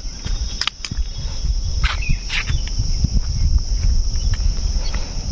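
Steady high-pitched drone of insects, over a low rumble on the microphone, with a few sharp clicks in the first half.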